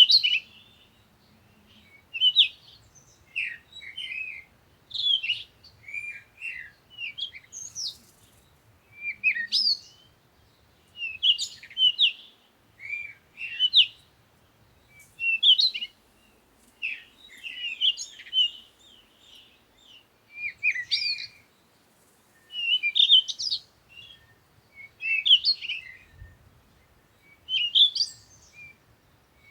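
Songbird chirping in short, quick phrases of rising and falling notes, repeated about every one to two seconds.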